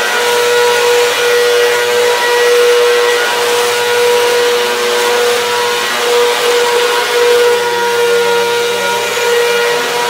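Upright vacuum cleaner running as it is pushed over a rug and a wooden floor: a steady motor whine over a rush of air.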